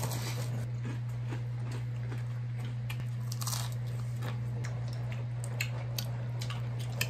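Biting into and chewing crispy deep-fried perilla-leaf tempura: a run of irregular crisp crunches, heard up close.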